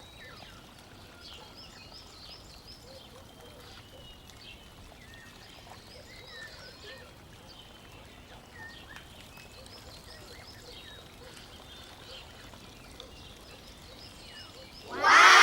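Faint, scattered bird chirps over a low hiss, with a voice exclaiming loudly near the end.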